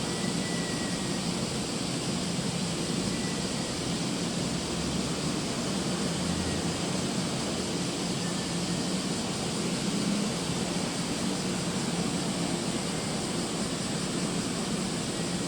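Steady rushing noise of wind and sea water on a moving cargo ship, with a faint low hum underneath.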